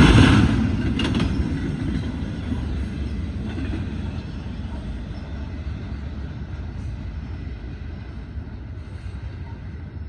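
Freight train wheels knocking over the railroad diamonds a couple of times near the start, then the train's low rumble fading steadily as it moves away.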